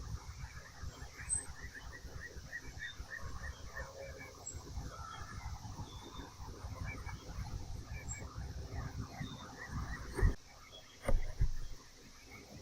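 Honeybees buzzing around an open hive during a frame inspection, the colony calm, over a steady low rumble. Two short thumps near the end.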